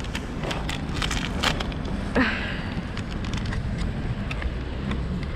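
Steady low rumble of vehicle traffic in a car park, with a few light clicks and a short squeak about two seconds in.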